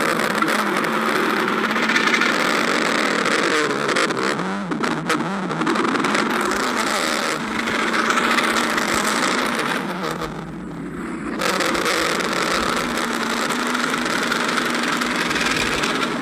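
Stomach growling: a continuous gurgling rumble that eases briefly about ten seconds in before picking up again.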